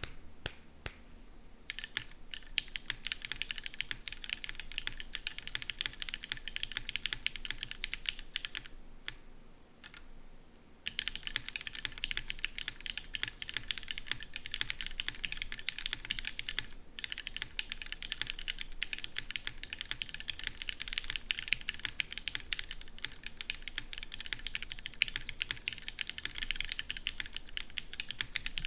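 Bisoromi RS60 mechanical keyboard with Cherry MX Black linear switches lubed with Krytox 205g0, on an aluminium plate with GMK doubleshot ABS keycaps, typed on quickly in a steady flurry of key clacks. A few single keystrokes open it, and about a third of the way in the typing breaks off for about two seconds, with only a couple of lone keystrokes, before it resumes.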